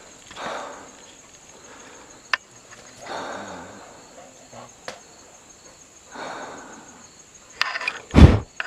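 Insects trilling steadily and high in woodland, with soft rustles in dry leaf litter every few seconds. A loud, low thump comes near the end.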